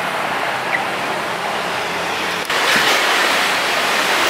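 Steady rushing outdoor noise, like wind or surf. It cuts abruptly about two and a half seconds in to a louder, brighter rush.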